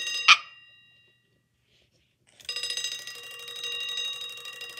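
A 1964 Big Ben wind-up alarm clock's bell ringing. There is a sharp clack just after the start and the ring dies away within a second. After about a second and a half of quiet, the hammer rattles against the bell again for about three seconds.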